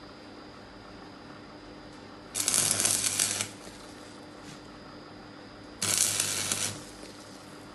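Electric welding arc crackling and sizzling in two short strikes of about a second each, the first about two and a half seconds in and the second near six seconds, with a low electrical hum between them.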